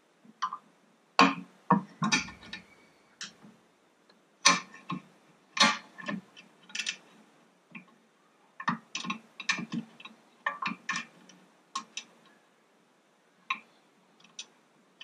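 Irregular sharp clicks and knocks of hand work on an outboard motor's powerhead, with parts and tools handled against the engine; some come in quick clusters of two or three.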